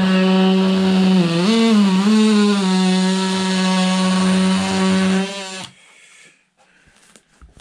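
Cordless DeWalt oscillating multi-tool running steadily as it trims overhanging fiberglass cloth along the edge of a foam-core panel. Its pitch dips and wavers between about one and two and a half seconds in as the blade takes the cut, and the tool stops about five and a half seconds in.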